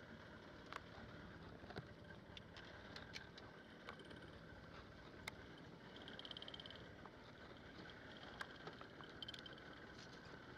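Faint, steady machine hum aboard a small fishing boat, with scattered light clicks and a brief buzz about six seconds in.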